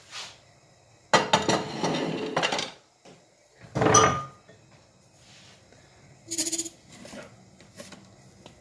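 Kitchen clatter of dishes and utensils being handled: a loud rattling burst lasting about a second and a half, a sharp ringing clink about four seconds in, and a short pitched sound a couple of seconds later.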